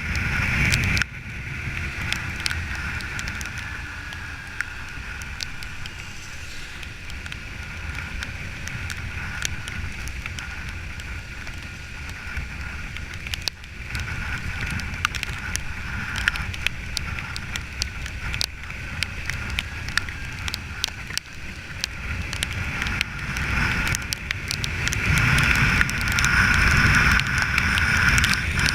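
Wind and road noise from riding a motorcycle in the rain, with many scattered raindrop ticks. It dips briefly about a second in and grows louder over the last few seconds.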